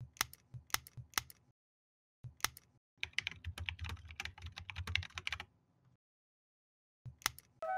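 A few sharp computer clicks, then a quick run of typing on a computer keyboard for about two and a half seconds, then one more click. A flute melody starts just before the end.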